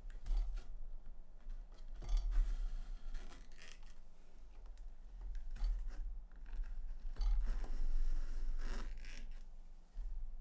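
Hand tools working leather: a handful of rough scraping, cutting strokes with short pauses between them, the longest near the end.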